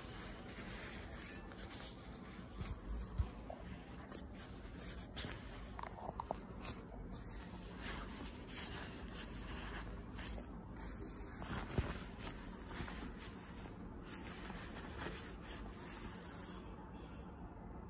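Glossy nylon shell of a Moncler down jacket rustling and crinkling as a hand squeezes and rubs it, with irregular crackles and a couple of louder snaps.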